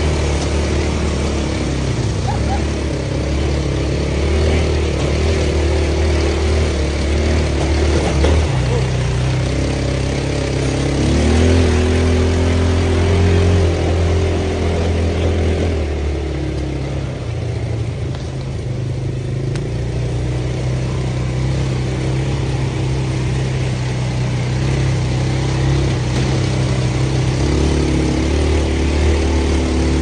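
Quad-bike (ATV) engine running under way, its pitch rising and falling with the throttle, easing off for a few seconds past the middle before picking up again.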